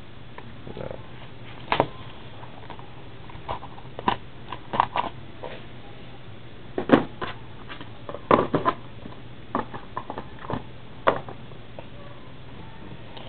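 Trading cards being handled at a tabletop: a stack of cards taken from the box and squared against the table, giving a dozen or so scattered clicks, taps and light knocks, the strongest a little over halfway through.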